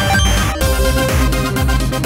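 Electronic background music with a steady beat of about two low thumps a second.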